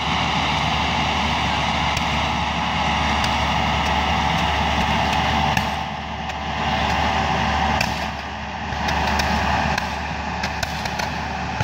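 Bobcat skid-steer's diesel engine running while the fireworks strapped to it fire, giving many sharp pops and crackles over a steady hiss. The pops come thicker in the second half.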